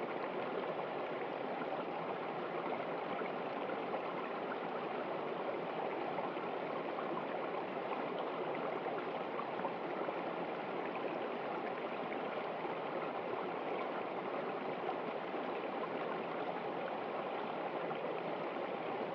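A small stream flowing and trickling over stones, a steady, even rush of water.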